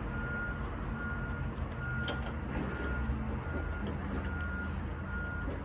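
A vehicle's reversing alarm beeping evenly, a short high beep about every 0.8 seconds, over a low engine rumble. There is a single sharp click about two seconds in.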